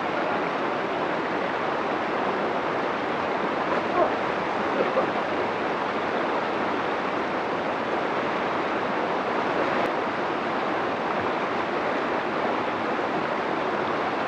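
Waterfall: a steady rush of falling water with no break.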